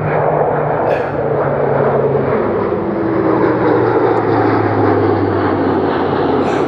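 Military transport plane flying past: a loud, steady engine drone whose low tones drop in pitch a couple of seconds in and keep falling as it goes by.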